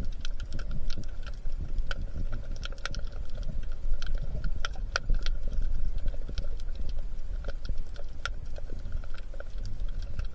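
Underwater sound picked up by a camera in its waterproof housing just below the sea surface: a constant low rumble of moving water with scattered sharp clicks and crackles, several a second, over a faint steady hum.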